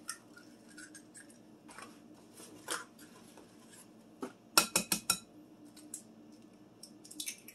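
Eggs being cracked into a glass mixing bowl: a few scattered sharp taps, then a quick run of knocks about four and a half seconds in, and more taps near the end.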